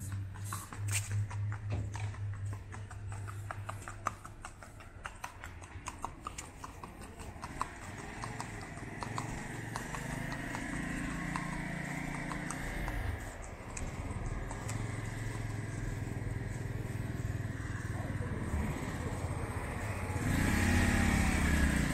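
A horse's hooves clip-clopping on a paved street, a quick run of hoof strikes that fades over the first several seconds. Then a motorcycle and other motor vehicles pass, with engine sound that bends in pitch and grows loudest near the end.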